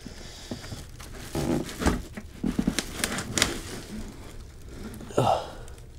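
Handling noise as a 3D printer's metal base unit is lifted out of its polystyrene foam packing: foam rubbing against foam and metal, plastic sheet rustling, and a scatter of light knocks, busiest between about one and four seconds in, with one short sliding scrape near the end.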